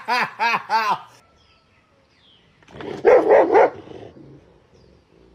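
A run of short repeated voice sounds ends about a second in. About three seconds in, a dog barks several times in quick succession.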